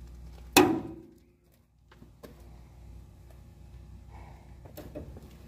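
Two loud, sharp metallic cracks from a rusted, seized leaf-spring bolt under heavy force from a long breaker bar. The first comes about half a second in with a short ring, and the second comes at the very end, with a few faint clicks between. A crack like this is the sign of the seized bolt or nut breaking loose.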